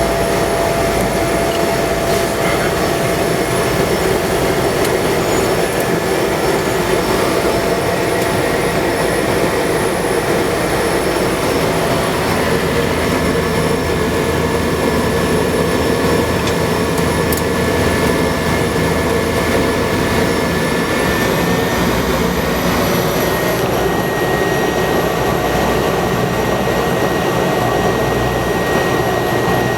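Cessna 208B Grand Caravan's Pratt & Whitney PT6A turboprop engine and propeller running steadily, a loud even drone with a whine above it. About twenty seconds in, the whine steps up slightly in pitch.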